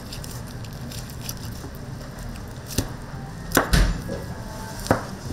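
Three sharp knocks over a steady background noise, the loudest, with a low thud, a little past the middle.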